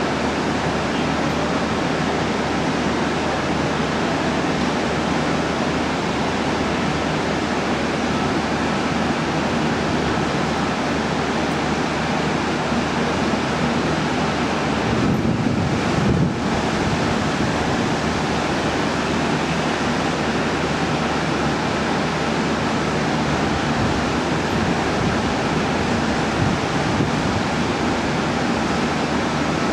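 Steady low rumble and hiss of a KiHa 40-series diesel railcar idling, with a brief louder swell in the rumble about halfway through.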